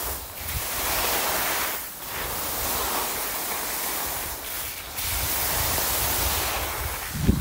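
Skis hissing over snow and wind buffeting the microphone during a downhill ski run: a steady rushing noise that dips briefly about three times, with a low buffet near the end.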